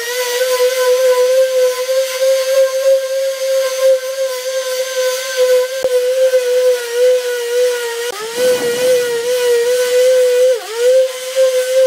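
Electric orbital sheet sander running and sanding body filler on a car door panel: a steady high motor hum over the hiss of sandpaper, its pitch dipping briefly a few times.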